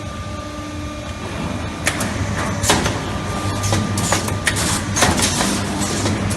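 Automatic wire hook-row ball-head welding machine running: a steady hum, joined from about two seconds in by frequent, irregular sharp clacks and short hisses of its working strokes.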